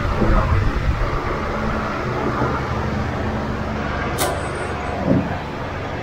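A steady low rumble of background vehicle noise, with a single sharp click about four seconds in as a keycap is pried off a laptop keyboard.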